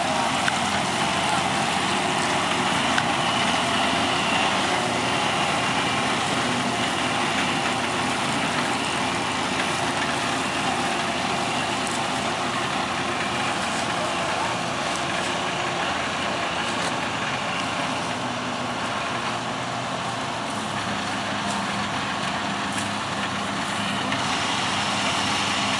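NS 929 combine harvester running: its diesel engine and threshing machinery make a steady, dense mechanical noise.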